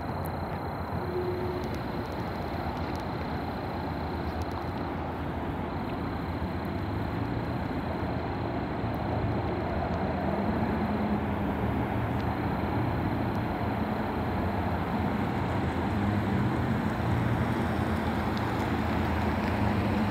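Diesel freight locomotives approaching, their engine rumble growing steadily louder, with a low engine drone coming in about halfway through.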